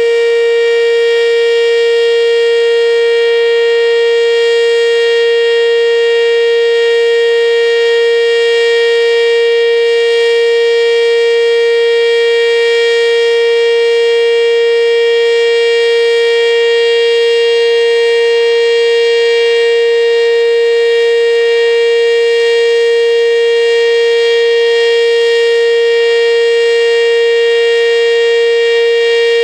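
ACA Banshee outdoor warning siren sounding a steady tone at full speed during a monthly test, holding one unchanging pitch with a rich set of overtones.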